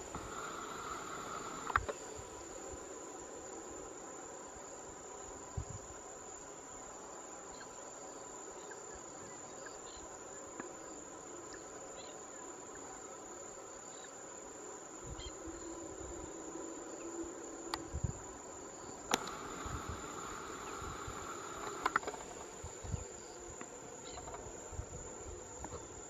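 Steady, high chorus of insects, cricket-like trilling, with a few soft low thumps scattered through it.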